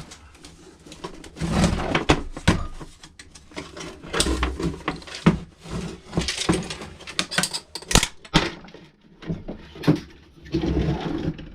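Plastic cabinet of a karaoke machine being worked loose and pulled off its chassis: irregular knocks, scrapes and clicks of plastic parts, with one sharp click about eight seconds in.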